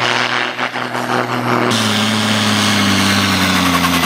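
Valmet/Valtra farm tractor diesel engines running flat out while pulling a weight-transfer sled. First comes a steady engine note, then after a cut a second tractor whose engine pitch slowly sinks as it lugs down under the growing load of the sled.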